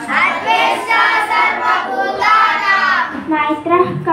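Children's voices chanting a Sanskrit verse to a sung, sing-song melody, with long held syllables and no pause.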